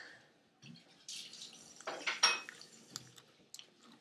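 Quiet clinks and knocks of a spoon and tableware being handled, with a few sharper clicks in the second half.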